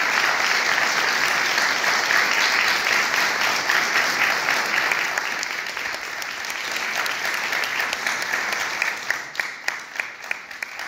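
Congregation applauding: dense clapping that fades and thins out to a few separate claps over the last couple of seconds.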